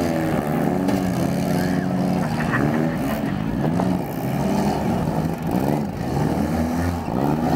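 Several demolition-derby cars' engines revving, overlapping, their pitch rising and falling again and again as the cars accelerate and back off.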